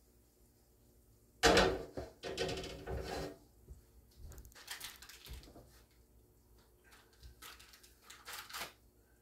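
Clattering and knocking of hard objects being handled: a sudden loud burst of clatter about a second and a half in, scattered lighter knocks after it, and another run of clatter near the end.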